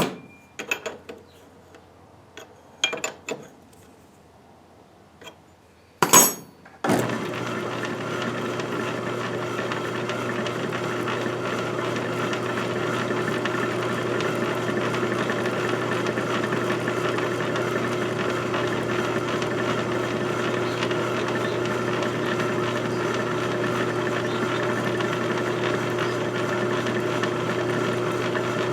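A few clicks and knocks from handling small parts, then about seven seconds in an electric drill starts up and runs steadily with a constant hum, spinning a very thin drill bit.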